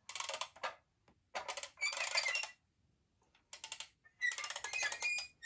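Small plastic toys being handled: four short bursts of clattering and rubbing, the later ones with faint squeaks.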